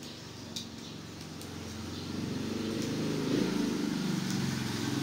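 A motor vehicle's engine passing by, a low hum that grows louder from about two seconds in and starts to fade near the end.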